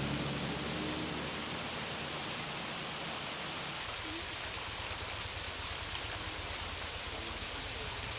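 Steady rushing hiss of water falling down a rock face from a small roadside waterfall. A low hum underneath changes to a low rumble about four seconds in.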